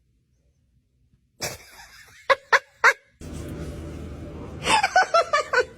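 A person laughing: a few short bursts of laughter about two seconds in, then a longer run of quick laughs near the end over a steady background hiss.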